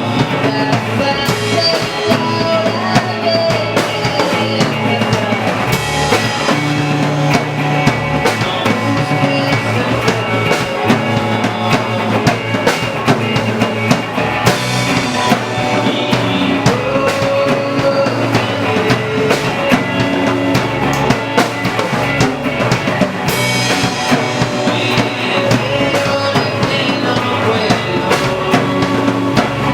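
Music with a drum kit keeping a steady beat.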